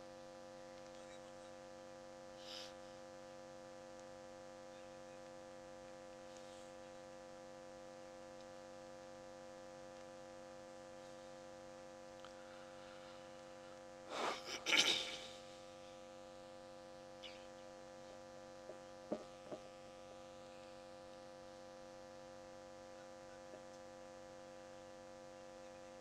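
Steady electrical hum with many fixed tones from the sound system during a silent pause. A single short, loud burst of noise comes about 14 seconds in, and a few faint clicks follow.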